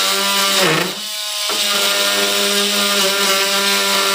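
Small high-speed rotary power tool cutting along a line, running with a steady whine; it winds down with a falling pitch shortly before one second in, starts up again about a second and a half in, and winds down again near the end.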